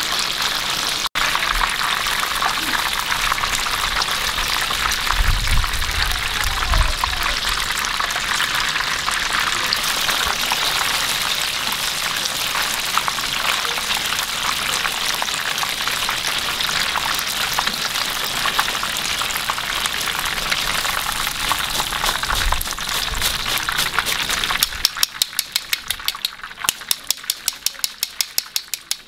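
Battered flower shrimp deep-frying in a large pan of hot oil: a dense, steady crackling sizzle. Near the end the sizzle thins out and a quick run of sharp clicks takes over as a wire strainer of shrimp is lifted from the oil.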